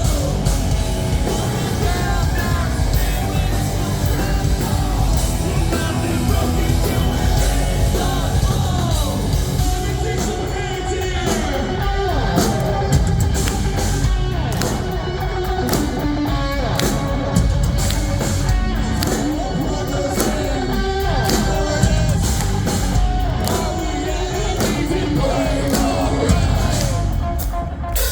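Live rock band playing a song at full volume, with a singer's voice singing and shouting over the instruments.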